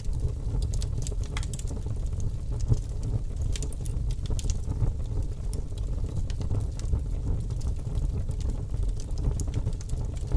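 Crackling fire: a steady low rumble with irregular sharp crackles and pops scattered throughout.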